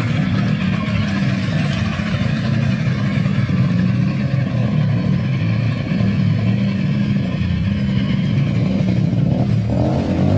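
A motor running steadily and loudly, with a low pulsing drone.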